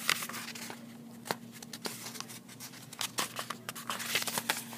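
Pages of a paperback book being flipped by hand: a run of quick paper flicks and rustles, a few sharper than the rest, over a faint steady hum.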